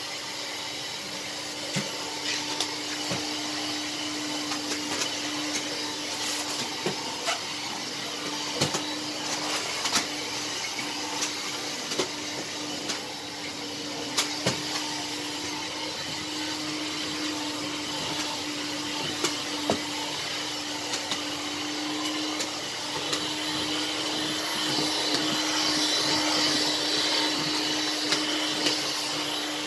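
Stick vacuum cleaner running steadily over the floor, a constant motor hum and airflow hiss with scattered sharp clicks and knocks; it grows a little louder and hissier near the end.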